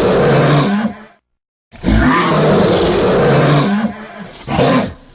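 Giganotosaurus roar sound effect: a roar cutting off about a second in, then after a brief silence a second roar lasting about two seconds, followed by a shorter roar near the end.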